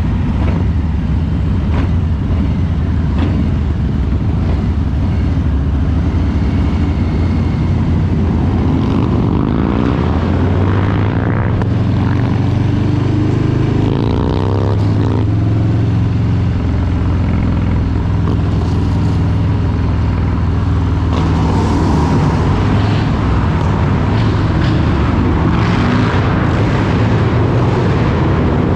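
Harley-Davidson Street Bob 114's Milwaukee-Eight V-twin running under way, loud and continuous, with its pitch climbing as it accelerates a couple of times around the middle.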